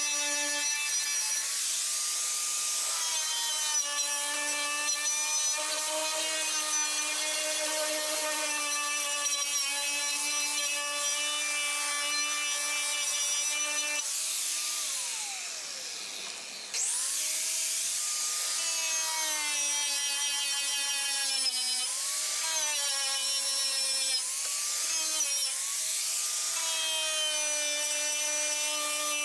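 Electric grinder with a wire wheel scrubbing rust off sheet steel: a steady high motor whine with a rasping hiss, its pitch sagging each time it is pressed into the metal. About halfway through it is let off and winds down, then starts again and comes back up to speed.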